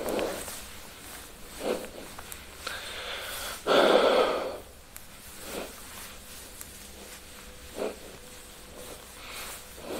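Cloth wiping a whiteboard: a series of short rubbing swishes, with one louder, longer stroke about four seconds in.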